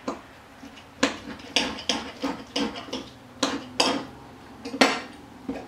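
Table knife and fork clinking and scraping against a ceramic plate while cutting cooked liver: about ten sharp, irregular clicks starting about a second in, the loudest near the end.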